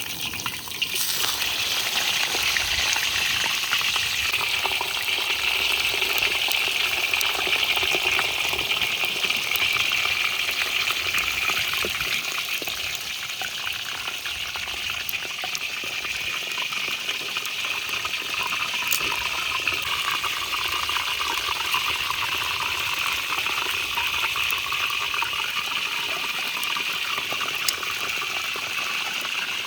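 Mudfish frying in hot oil: a steady sizzle with fine crackling that eases slightly partway through.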